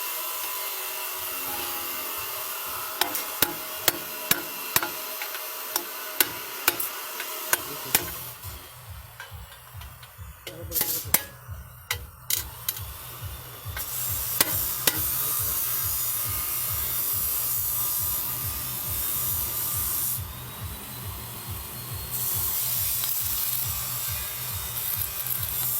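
Wheel rim repair work: a series of sharp metal taps, then a machine running steadily with a fast low pulse and hiss.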